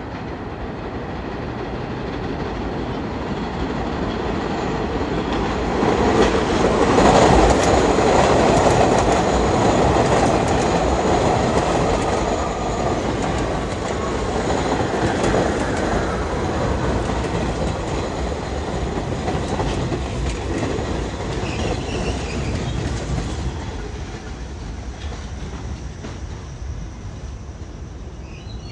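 R68A subway train pulling into the station, its wheels clacking over the rail joints. It grows loudest about seven seconds in as the cars pass, then eases off as the train slows, with a faint falling whine.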